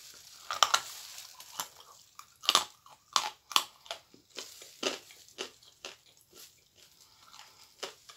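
Biting into and chewing a dry lump of edible clay: a dozen or so sharp crunches at irregular intervals, the loudest a few seconds in.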